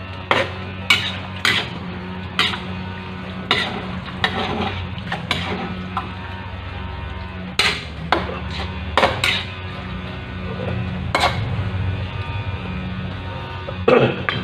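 A metal spatula knocking and scraping against a metal wok while stirring chicken pieces, about a dozen irregular clanks, over a steady low hum.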